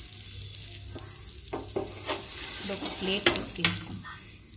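Flat spatula scraping and knocking against a frying pan as an omelette is folded and lifted out, over a light sizzle of egg frying.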